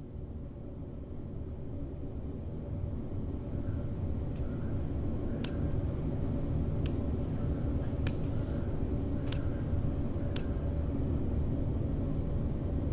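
A steady low rumble of background ambience, slowly growing louder. Over it come about seven sharp, short clicks or taps, mostly about a second apart, starting around four seconds in and stopping a little after ten seconds.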